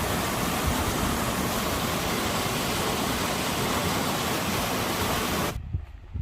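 Steady rushing water, even and unbroken, that cuts off abruptly near the end.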